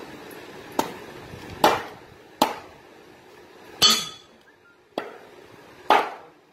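A large curved chopping knife hacking raw green mangoes into pieces on a wooden block: six sharp chops, roughly one a second.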